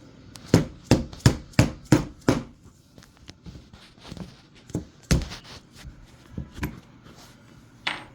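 Hammer striking a punch to drive out the pin that holds the magazine tube and front sight band of a Marlin Model 60 .22 rifle. Six quick hard blows come first, then lighter, scattered taps with one more hard blow about five seconds in, and a short metallic clink near the end.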